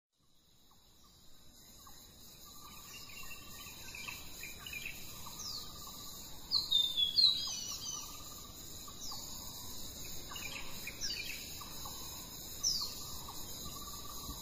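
Birds chirping over a steady high-pitched insect drone, fading in from silence; short downward-sliding chirps come about once a second, with a louder flurry of calls a little past the middle.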